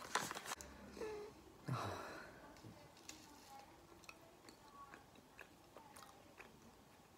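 Quiet wet chewing of a soft green tea mochi, with crinkling of its paper cup in the first moments.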